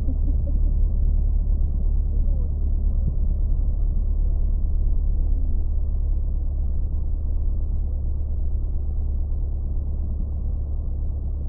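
Single-engine light aircraft's piston engine and propeller running steadily at taxi power, heard from inside the cockpit as an even low drone.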